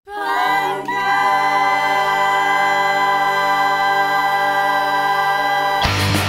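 Song intro: voices hold a sustained chord in harmony, wavering briefly at the start and then steady. Near the end the full punk rock band crashes in with drums and guitar.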